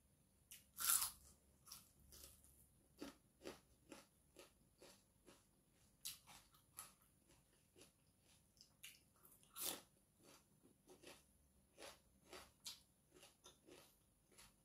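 A person chewing and biting crisp food at close range, with a run of short crunches. The two loudest crunches come about a second in and just before ten seconds.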